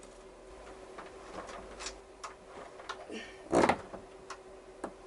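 Scattered clicks and knocks of motorcycle parts being handled and fitted by hand, with one louder clunk a little past halfway through, over a faint steady hum.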